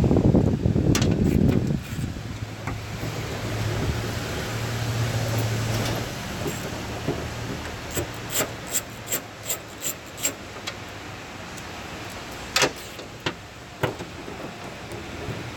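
A hand socket wrench clicking as it turns out the 7/16-inch nuts on the liftgate, about three sharp clicks a second for a couple of seconds, with a few single clicks near the end. Before that there is handling noise with a low rumble, then a low steady hum.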